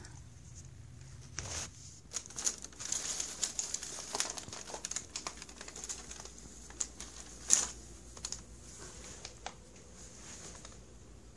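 Brown packing paper and cardboard crinkling and rustling as a cat rummages through a delivery box: a long run of irregular crackles, with one sharp loud crackle about two-thirds of the way through.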